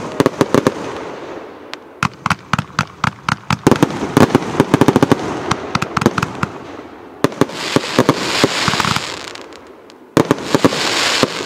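Rubro Event Box Zero Tolerance, a 152-shot fireworks compound cake, firing in rapid succession: a string of sharp shots and bursting reports, densest a few seconds in. About seven seconds in, and again near the end, come stretches of dense hiss.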